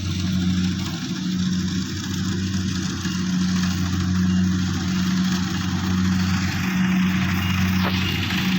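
Engine of a rice harvesting machine running steadily at a constant pitch.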